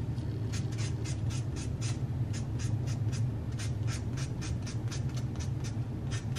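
Nail buffer block rubbed back and forth over fingernails in quick scratchy strokes, about four or five a second, with a couple of short pauses. This buffs the natural nails before press-on nails are glued on. A steady low hum runs underneath.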